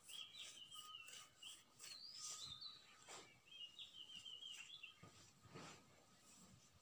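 Faint birdsong in the background: two warbling phrases of chirps and a short high whistle, with a few soft clicks.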